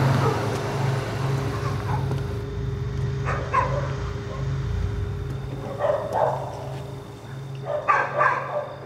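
Small car's engine idling with a steady low hum after it has pulled up, broken by three short sharp sounds, the loudest near the end.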